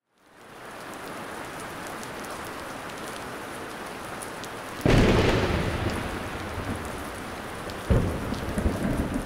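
Steady rain falling, with a sudden thunderclap about five seconds in that rumbles away slowly, and a second, sharper crack of thunder near the end.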